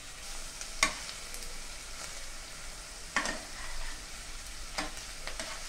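Chopped onions sizzling in hot oil in a pot, frying toward golden, while a steel spoon stirs them. The spoon scrapes and knocks against the pan about a second in, again around three seconds, and twice near the end.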